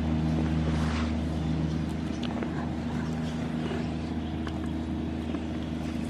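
A steady, low engine hum that holds one pitch throughout, with a few faint clicks on top.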